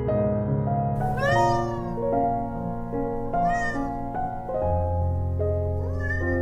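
A cat meowing three times, each meow rising and then falling in pitch, over soft piano music.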